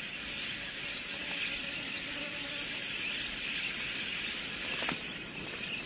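Steady insect chorus of crickets or cicadas: an unbroken high chirring with a fast, even pulse.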